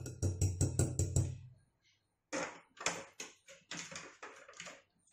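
Wire whisk beating oil and powdered sugar in a glass bowl, about six quick strokes a second with a low rumble, stopping about a second and a half in. A few scattered clicks and knocks follow.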